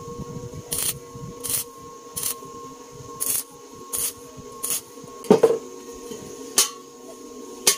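Stick welder striking a series of short tack welds on sheet steel: brief crackling bursts, roughly one a second. A louder metal clank comes a little past the middle, over a faint steady hum.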